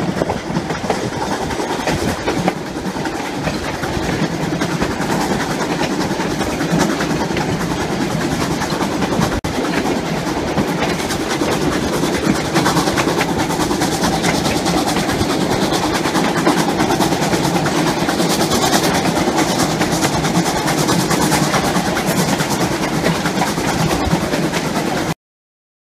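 Narrow-gauge passenger train running on the rails, heard from the open side of a moving car: a steady rush of wheel and track noise with fast clicking. It cuts off suddenly shortly before the end.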